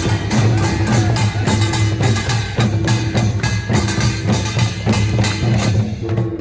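Korean traditional percussion ensemble playing a fast, dense beat, with a low steady tone running underneath.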